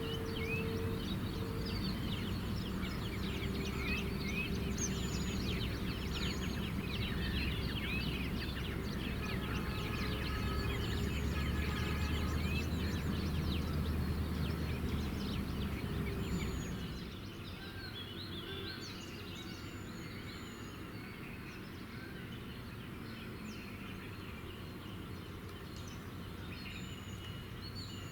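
Many birds chirping and calling over a low rumble; the rumble drops away about two-thirds of the way through, leaving the birdsong over a quieter background.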